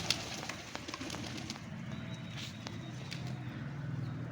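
Pigeons cooing, a low throaty sound that swells and fades, with a few sharp clicks near the start.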